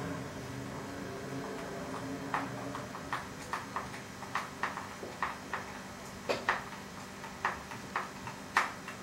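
Light, irregular clicks and taps from a hand and small tool working on a radio-controlled monster truck's plastic chassis. There are a dozen or more sharp clicks at uneven intervals, starting about two seconds in, and the loudest come near the end. A low steady hum fades out in the first second and a half.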